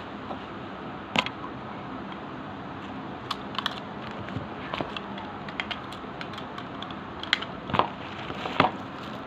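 Steady background hiss with small, irregular clicks and ticks scattered through it, the sharpest about a second in and a few more near the end.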